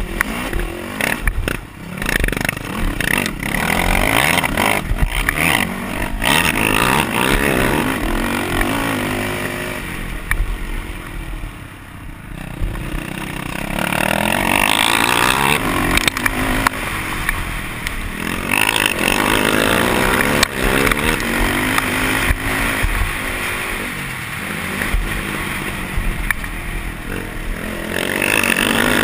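A racing quad's engine heard from on board, revving up and dropping off again and again under hard riding, with knocks and rattles from the rough dirt track. The engine eases off about ten seconds in, then comes back on hard.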